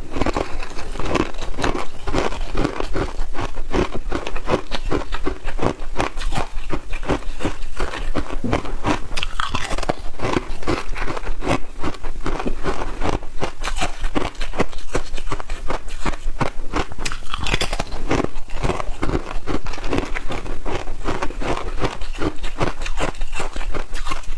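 Hard frozen ice discs being bitten and chewed close to the mouth: a dense, continuous run of sharp cracks and crunches, bite after bite.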